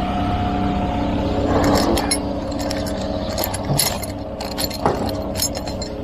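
Steel anchor bolts clinking and jangling against each other as a handful is pulled from a cardboard box, in a scatter of sharp clinks over a few seconds. A truck engine runs steadily underneath.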